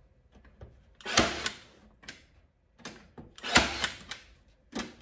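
Staple gun firing staples into a wooden frame: two sharp snaps, about a second in and again near the end, with a few faint ticks between.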